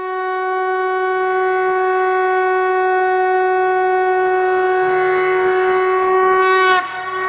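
Conch shell blown in one long, steady note that breaks off near the end.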